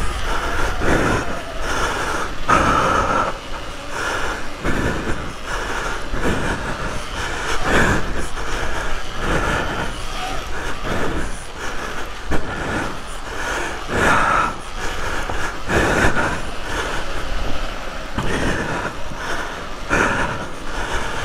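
Electric off-road motorbike's motor whining, surging and easing roughly once a second as it is throttled over the bumps, with knocks and rumble from the tyres and suspension on the dirt.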